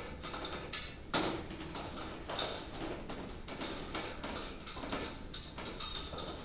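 Irregular light knocks, clicks and rustles of objects being handled, with the loudest knock about a second in.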